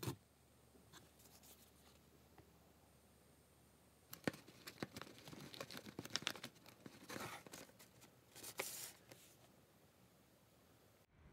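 Faint rustling of a paper gift bag and tape being handled, in short scattered bursts that start about four seconds in and die away near the end.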